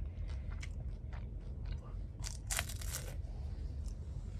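A person crunching and chewing a freshly deep-fried spring roll filled with glutinous rice and shepherd's purse, its crisp skin crackling in short snaps. The thickest run of crunches comes a little past halfway.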